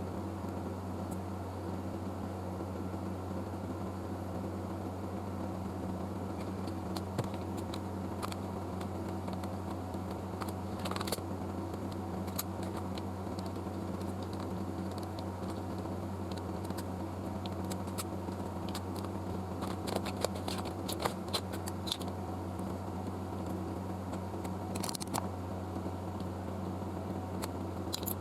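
A steady machine hum, like a running fan or bench equipment, with a few light clicks and taps scattered through it, clustered around the middle and near the end.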